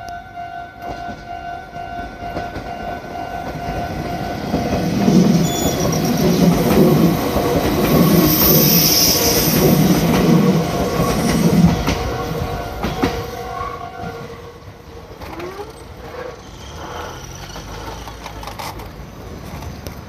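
Meitetsu 5700 series electric train passing over a level crossing. Its wheels clatter in a beat about once a second as the cars go by, loudest in the middle. The crossing's warning bell rings over it in a steady pulse and stops a couple of seconds after the train has cleared.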